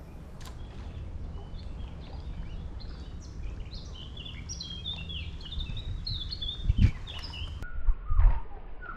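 Small birds chirping and singing over a steady low rumble, with two short low thumps near the end.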